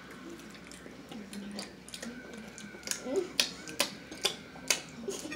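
Mouth sounds of someone eating fried chicken close to the microphone: a run of sharp wet smacks, about two a second, in the second half.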